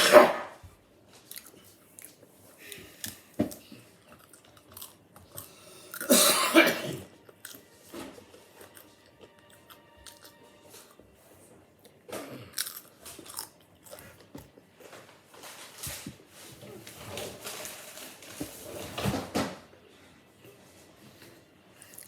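Someone biting and chewing crisp potato chips, irregular crunches with quieter chewing between, loudest at the very start and about six seconds in.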